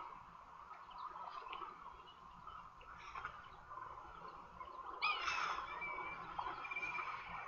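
Wild birds calling in the bush: scattered short high chirps over a steady background hiss, with a louder cluster of calls about five seconds in followed by two short whistled notes.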